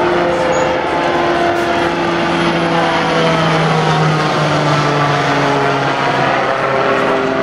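Dornier Seastar amphibian with two push-pull propellers mounted above the wing, flying a low pass: a steady propeller drone with several tones that drop in pitch about halfway through as it goes by overhead.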